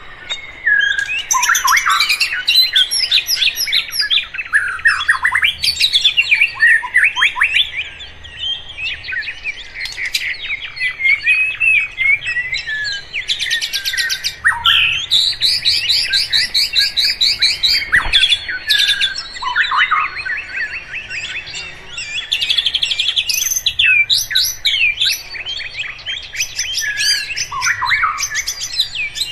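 Many songbirds chirping and singing at once in a dense, continuous chorus of overlapping calls, with rapid trills in the middle.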